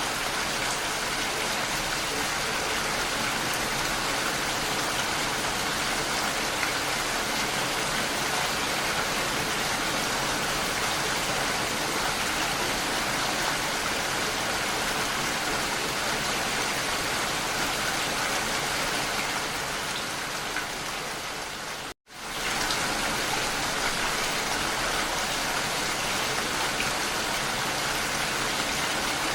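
Steady rain falling, an even, dense patter. About three quarters of the way through, it fades out to silence for a split second and comes straight back.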